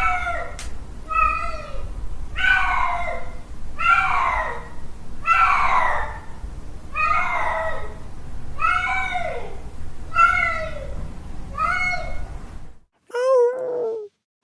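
Tomcat's mating call: about nine drawn-out yowls, one roughly every second and a half, each rising and then falling in pitch, over a low hum. The calls stop abruptly and, after a short silence, a different cat call starts near the end.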